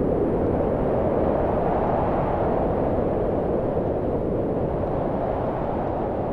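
Steady rushing, wind-like noise from a sound effect, slowly fading.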